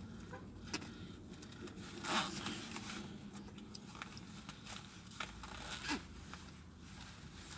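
Faint rustling and scattered small clicks, with a louder rustle about two seconds in and another near six seconds, over a low steady hum.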